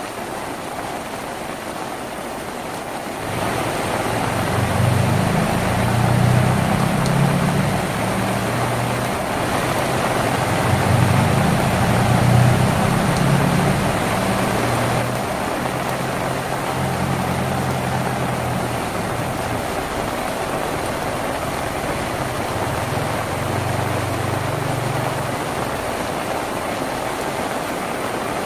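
Steady rain falling on a tin roof. About three seconds in, a low engine hum with shifting pitch joins it, typical of a passing motor vehicle, and fades out near the end.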